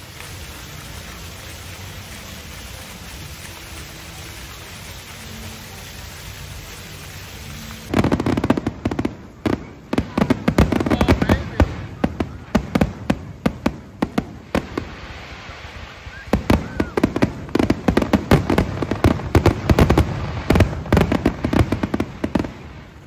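Steady low background hum, then about a third of the way in a fireworks display starts: a rapid, dense run of sharp bangs and pops, thinning briefly past the middle and then picking up again.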